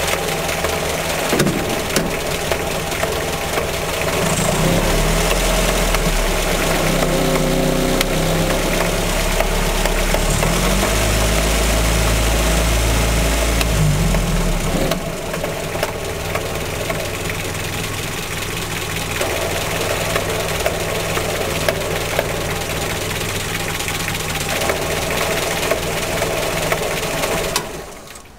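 Land Rover Series III engine running with the main gearbox in neutral, the gearbox making a knocking noise. The engine runs faster and louder for about ten seconds, settles back to idle, and stops shortly before the end.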